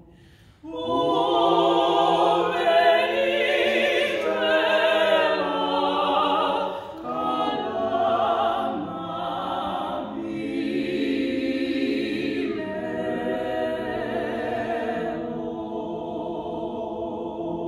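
Small mixed vocal group of two women and two men singing a hymn a cappella in harmony. After a brief pause about half a second in, they sing on, with the last notes held long.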